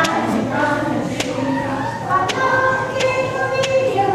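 A group of voices singing a song together in long held notes, with a few sharp taps now and then.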